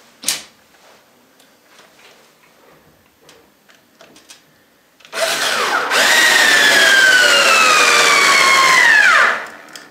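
Cordless drill/driver driving a wood screw into a wooden board. About halfway through, the motor spins up into a loud whine that slowly falls in pitch as the screw sinks in under load, then stops sharply near the end. Before that there are only faint clicks of handling as the screw is set.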